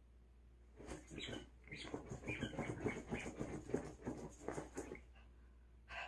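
Small poodle pawing and digging at a pillow: quick scratching and rustling of the fabric, starting about a second in and stopping about a second before the end, with one last scratch near the end.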